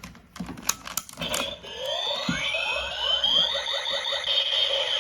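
Plastic clicks from a simplified Kamen Rider Kabuto belt toy being worked, then its electronic sound effect playing from the small built-in speaker: layered synthetic tones with sliding pitches and a fast pulsing that carry on steadily.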